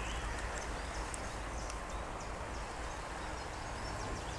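Steady rushing of river water around a weir pool, with a few faint bird chirps over it.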